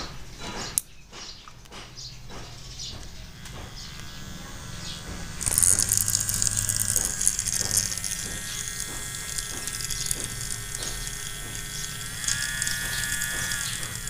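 A tattoo machine's small electric motor, run from an adjustable DC power module: it starts with a few handling clicks and comes up to a steady whir about four seconds in, growing louder and buzzier a second later. Near the end its pitch steps up as the supply voltage is turned up.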